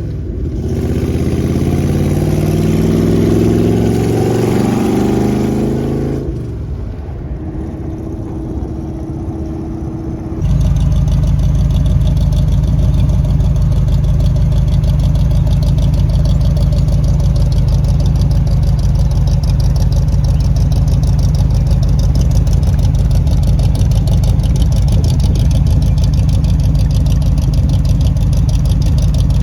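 V8 engine of a 1978 Jeep CJ-5 running through fenderwell headers and Purple Hornie mufflers, its pitch rising and falling over the first several seconds, then quieter for a few seconds. About ten seconds in it cuts abruptly to a loud, steady, deep idle.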